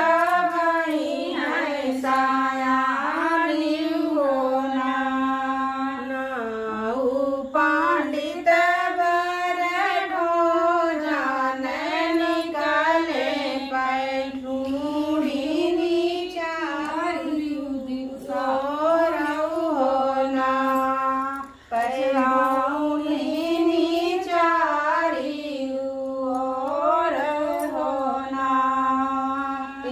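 Women singing a kajari folk song unaccompanied, one melodic line in long wavering phrases, with a short pause for breath about two-thirds of the way through.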